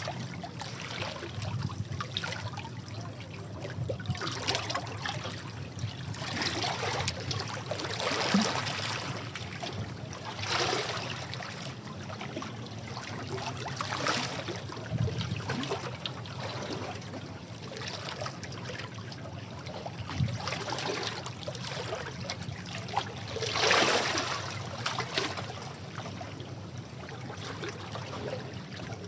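Sea waves washing against rocks: a continuous rush of water that swells and ebbs in surges every few seconds.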